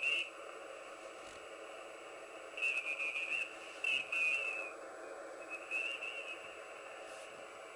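Receiver hiss from an ICOM IC-703 shortwave transceiver tuned to an empty SSB frequency; the noise is cut off to the narrow voice passband. Faint warbling whistles from other signals come and go near the top of the band about three times.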